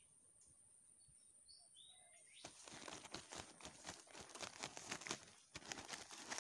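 A few faint, high bird chirps, then a dense, irregular crackling rustle that starts about two and a half seconds in and keeps going.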